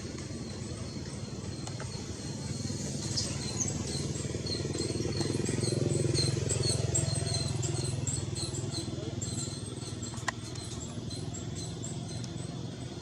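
A motor vehicle's engine passing, its low hum swelling to a peak about halfway through and then fading. Over it comes a run of rapid, high-pitched chirps.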